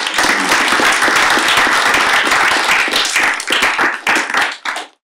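Audience applauding: many hands clapping together, cut off abruptly just before the end.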